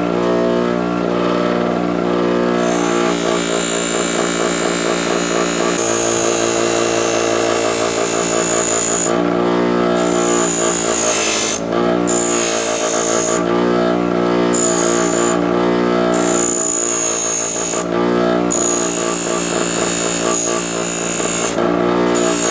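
Electric power sanding tool running steadily with a strong motor hum while stainless steel trim is sanded. A high hiss comes and goes several times as the metal works against it, and the motor's pitch sags briefly about halfway through.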